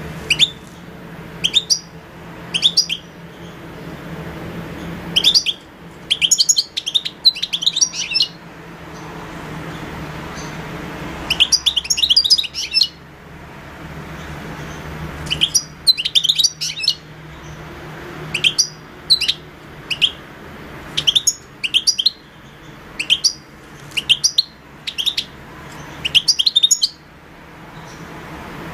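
European goldfinch calling: short, sharp chirps in quick groups every second or two, with a few longer twittering runs, over a steady low hum.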